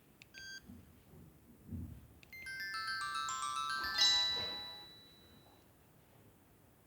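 Samsung SGH-X210 mobile phone playing a short ringtone: a quick run of rising electronic notes that ends on a chord about four seconds in and fades away. Just before it, a brief electronic beep and two soft low thumps.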